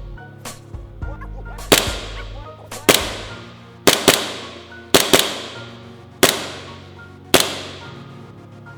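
A series of sharp bangs, about one a second and twice in quick pairs, each with a ringing tail, over background music.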